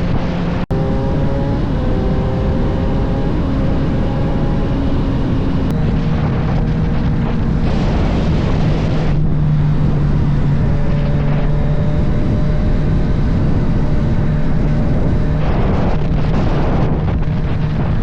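Motorcycle engine running at road speed under heavy wind rush, its pitch steady for long stretches and stepping down and up now and then.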